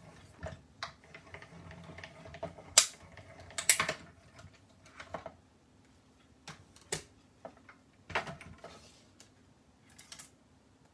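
Hand-cranked Stampin' Up! die-cutting machine rolling a sandwich of acrylic cutting plates and metal dies through, with a low rumble and a couple of sharp clicks in the first few seconds. Then the plastic plates click and clack as they are lifted off and taken apart.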